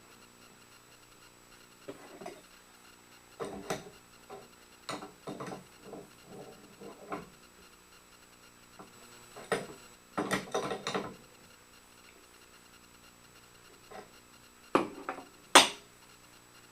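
Scattered clicks, clinks and short rubbing sounds of hand tools on metal as a dado blade stack is fitted on a table saw's arbor. The loudest is a single sharp click near the end.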